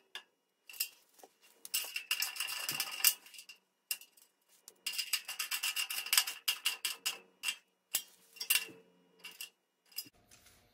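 Ratchet wrench clicking in quick runs as nuts are tightened down on bolts, with short pauses between strokes; the clicking thins out and stops near the end.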